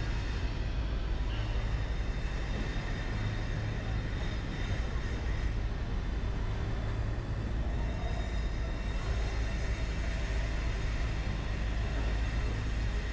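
Electric light-rail train running along the track at speed, a steady low rumble of wheels on rails.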